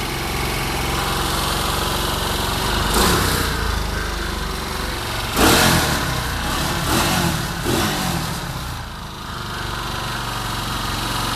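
Quad bike (ATV) engine running steadily and revved up and back down several times, the sharpest rev about five and a half seconds in.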